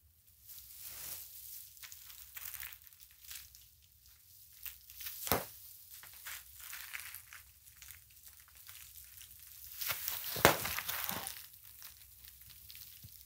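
Plastic bubble wrap crinkling and rustling as people wrapped in it step slowly across a bubble-wrap sheet, with scattered sharp pops of bursting bubbles, the two loudest about five seconds in and near ten and a half seconds in.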